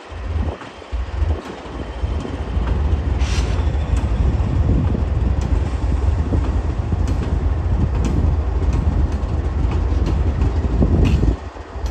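Freight train rolling slowly past, led by CSX diesel locomotives with autorack cars behind: a steady low rumble with scattered clicks of wheels over rail joints.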